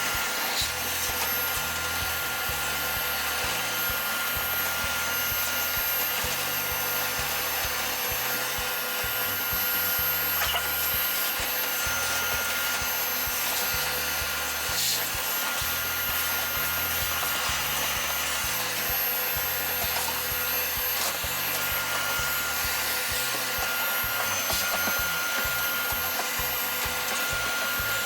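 Vacuum cleaner running steadily with a constant high motor whine, sucking built-up dust off an air-conditioner filter.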